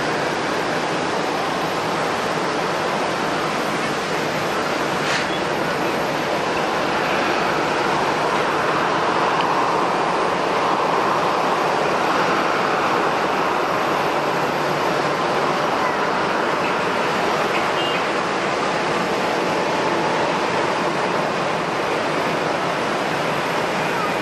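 Airliner jet engines running: a steady rushing noise that swells a little about midway.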